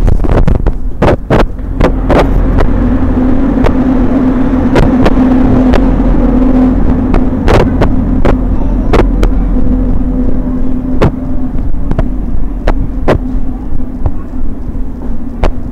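Handling noise from a hand-held camera being carried at a walk: a loud, steady low rumble with a hum, broken by irregular sharp clicks.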